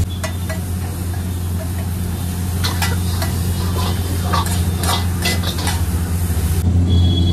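Metal spatula scraping and clinking against a large iron tawa as a corn, onion and sauce mixture is stirred and spread on the hot plate, with a light sizzle. The clinks come thickest in the middle, over a steady low hum.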